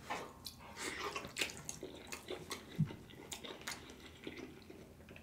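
Close-miked wet chewing and mouth sounds of a mouthful of sauced oxtail: irregular moist clicks and smacks, a few each second.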